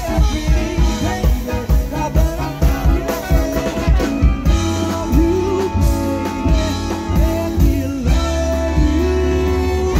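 Live swing band, with saxophones, trombone, upright bass and drum kit, backing a male singer. Near the end the singer and band hold one long note.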